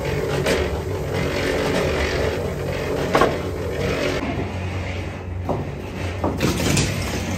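Small electric drum concrete mixer running with a steady hum, under the knocks and rattles of a loaded steel wheelbarrow being pushed; the sharpest clunk is about three seconds in, and a few more come near the end as the barrow goes over a plank.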